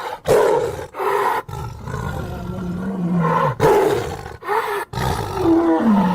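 Pachyrhinosaurus creature sound effect: a series of roars and bellows. A few short calls come first, then a longer call ending in a low, falling groan, then more short calls and a final call whose pitch slides down before it cuts off.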